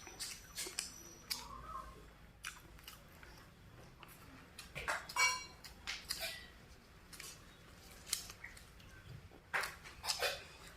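Close-up chewing and crunching of raw vegetables, a run of irregular crisp crackles and clicks from the mouth.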